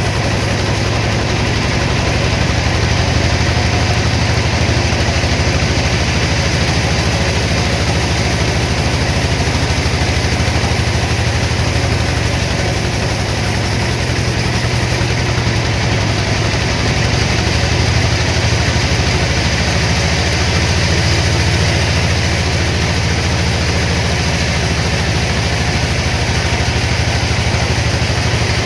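Sawmill machinery running steadily with a deep, even hum and no distinct cuts or knocks.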